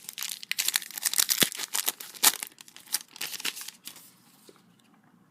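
Crinkling and tearing of a foil trading-card pack wrapper being opened, a dense crackle that dies away about four seconds in.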